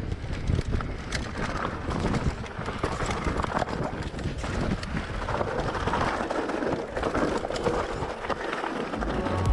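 Mountain bike descending a rocky trail: tyres crunching over loose stones and the bike rattling with many small knocks over bumps. Music comes in near the end.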